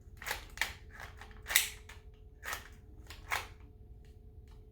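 Sharp plastic clicks and clacks of a Walther PPQ airsoft pistol being handled, its slide worked back and forth while the owner tries to lock it back. About six irregular clicks, the loudest about a second and a half in.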